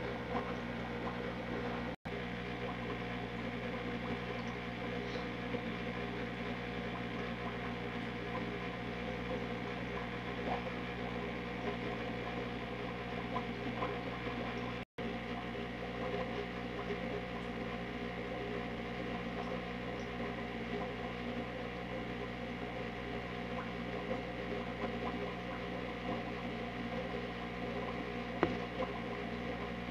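Steady background hum made of many held tones, unchanging throughout, with a few faint clicks and two very brief dropouts.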